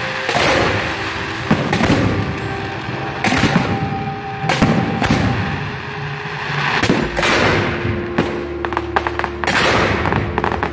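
Fireworks fired from close range: a battery of firework tubes in wooden racks launching shot after shot, a sharp bang about every second. About eight seconds in comes a quick run of crackling reports.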